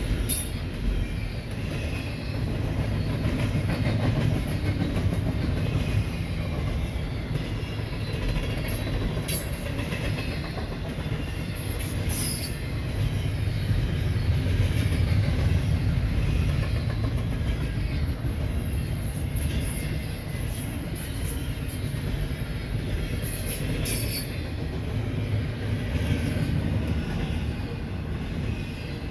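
Freight train cars rolling past, a steady low rumble of steel wheels on the rails, with a few brief high-pitched wheel squeals now and then.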